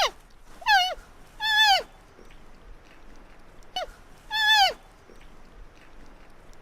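Baby panda calling: about four short, high-pitched squeals in quick succession, each holding its pitch and then dropping off at the end. The last two seconds hold no calls.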